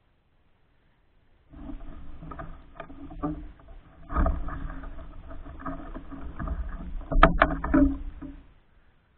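Snow being shovelled: a shovel scraping and scooping snow, with a few sharp knocks, the loudest about seven seconds in.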